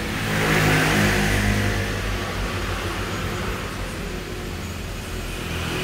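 A motor vehicle engine running, with a steady low hum that swells about a second in and then eases off.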